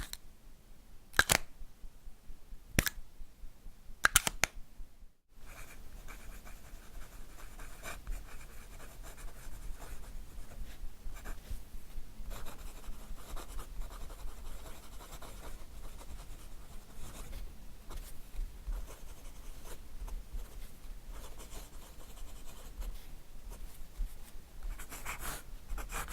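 A few sharp clicks from a fountain pen's cap in the first few seconds, then the steel nib scratching across paper in steady, rapid writing strokes.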